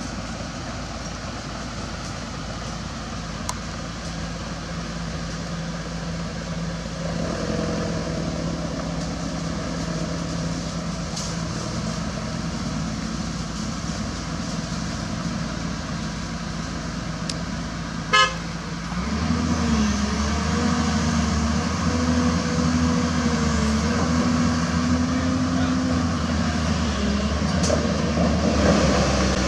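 Diesel engines of heavy trucks and an excavator running steadily. A little past halfway there is a brief sharp toot or clank. Right after it a louder engine takes over with a wavering drone.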